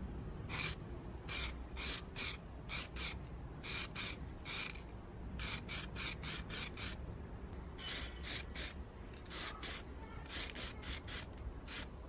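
Aerosol spray-paint can being sprayed in many short hissing bursts, about two a second with brief pauses between runs.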